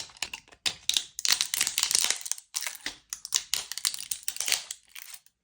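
Blade shaving excess plastic fused onto a 3D-printed part: quick runs of crunchy scraping strokes with short pauses between them.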